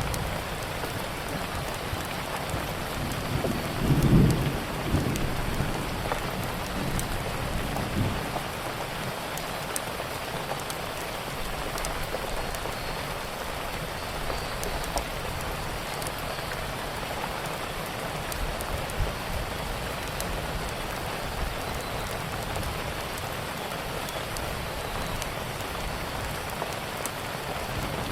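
Steady rainfall, with sharp crackles from a fireplace scattered through it. A brief low rumble comes about four seconds in and is the loudest moment, with a smaller one near eight seconds.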